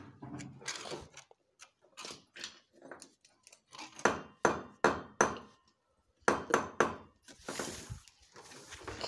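Sharp knocks and taps in two quick runs of three or four, from working a tin of PVC pipe glue against a blue PVC casing pipe. Near the end comes a scraping rustle as the pipe is lifted.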